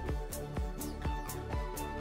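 Background music with a steady beat: a low kick drum about twice a second, alternating with a sharp, bright drum hit, over sustained pitched notes.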